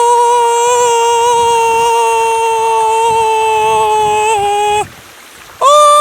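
A man's voice holding a long, loud, single-pitch vocal cry, an open 'aaah' drawn out for about five seconds. Its pitch dips slightly near the end before it breaks off. After a short gap for breath he starts another held cry on a higher pitch.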